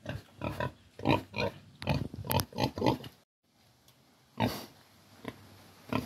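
Domestic pig grunting: a quick run of short grunts over the first three seconds, then a pause and one more grunt about four and a half seconds in.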